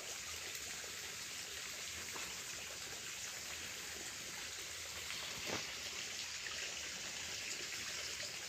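Steady rushing of running water, with a single light knock about five and a half seconds in.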